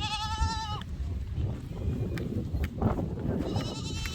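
Goats bleating in a pen: one wavering call about a second long at the start, then another higher call near the end, over a steady low rumble.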